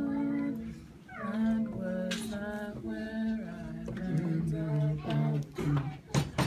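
A woman and a man singing a slow song together, with long held notes, a short break about a second in and another near the end.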